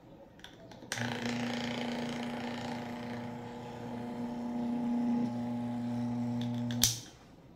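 Electric stand-fan motor with its blade removed, switched on with a newly wired capacitor: after a click it starts running straight away with a steady electrical hum and whir. It runs for about six seconds and stops abruptly with a loud click as it is switched off.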